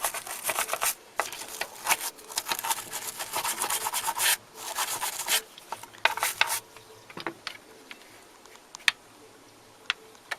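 Brisk back-and-forth scrubbing of a turntable part being cleaned, fast rubbing strokes for about six seconds, then it stops and a few light clicks follow.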